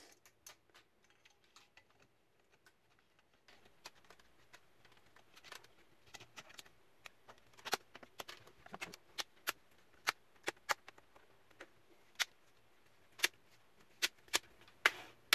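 Plastic snap clips of a Dell Inspiron 3521 laptop's screen bezel clicking into place as the bezel is pressed onto the display lid. A string of sharp, irregular clicks begins a few seconds in, the loudest near the end.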